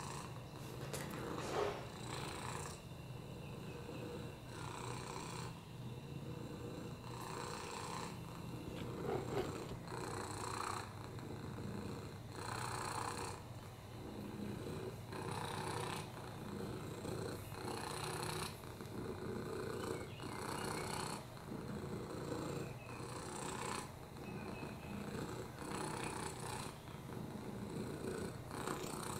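Domestic cat purring steadily, the purr swelling and fading in an even cycle about every two and a half seconds.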